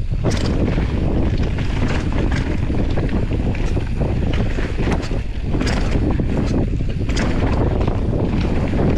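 Wind rushing over the microphone of a mountain bike descending a dirt trail, with the tyres rumbling over the ground and scattered sharp knocks and rattles as the bike hits bumps.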